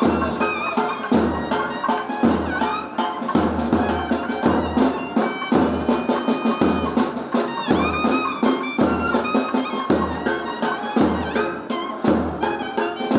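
South Indian temple procession music: a nadaswaram's reedy melody over a steady thavil drum beat.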